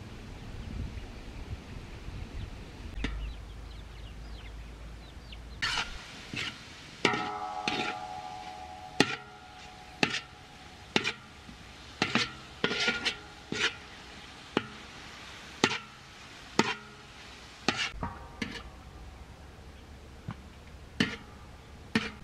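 Repeated sharp chopping strikes, roughly one a second, some with a brief ringing tone after the blow.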